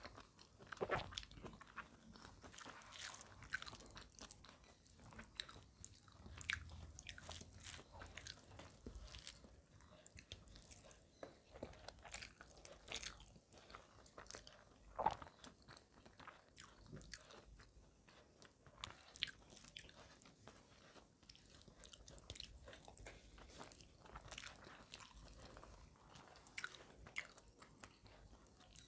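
Close-miked chewing and mouth sounds of someone eating rice and curry by hand, with many small irregular clicks and a louder click about 15 seconds in.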